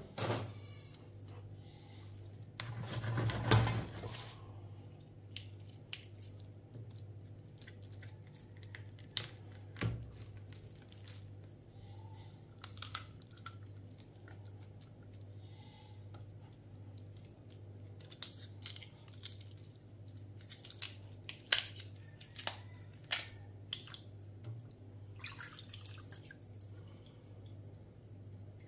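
Knife trimming fat off raw chicken backs on a plastic-wrapped board: scattered small wet clicks and squelches, with a louder rustling scrape about three seconds in, over a steady low hum.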